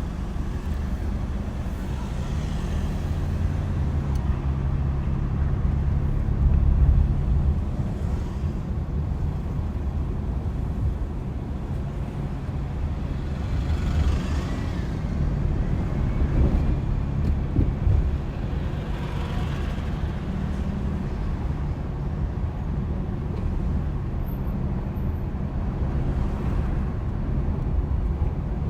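A car driving, with steady engine and road noise and a louder low rumble about seven seconds in. Other traffic swishes past around the middle.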